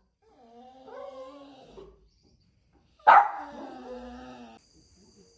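A dog crying in distress, husky-like. First comes a wavering whining howl, then about three seconds in a sharp, loud yelp that draws out into another long howl. It is the crying of a dog shut in and wanting to be let out.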